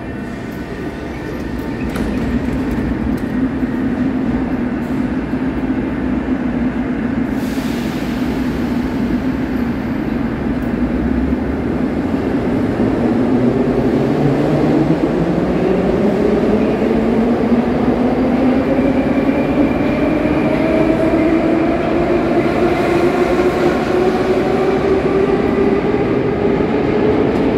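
An 81-717-series metro train pulling out of the station and accelerating: a steady rumble, then from about halfway its traction motors whine, rising steadily in pitch as it speeds up.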